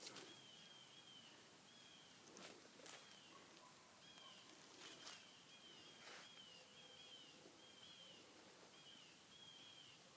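Quiet woodland ambience: a faint high chirp repeated in runs, about two a second, with a few soft clicks.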